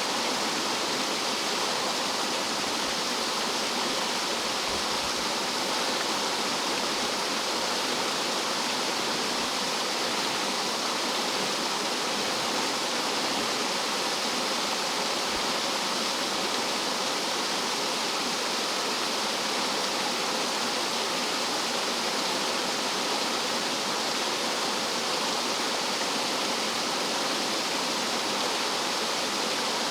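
Rough mountain-stream water tumbling down like a small waterfall: a steady, unbroken rush of water.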